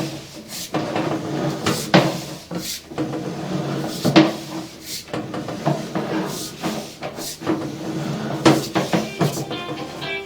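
Sewer inspection camera rig in use: irregular knocks and clatter, about one or two a second, over a steady low hum.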